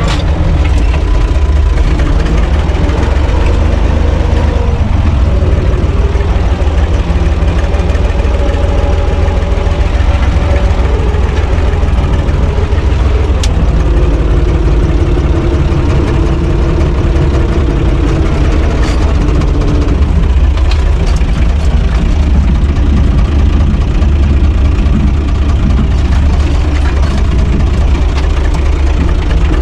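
The four-cylinder diesel engine of a UTB U445 DT tractor running steadily, heard loud from inside its cab.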